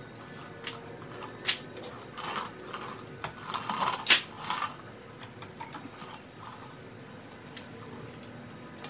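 Small clicks and clinks of hand work at a Porsche Macan GTS front brake caliper as the brake pad wear sensor wire is unclipped, bunched in the middle, with a sharp click about four seconds in.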